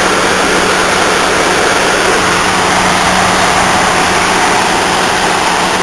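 Window air conditioner running: a steady rush of air from its fans with a steady low hum underneath.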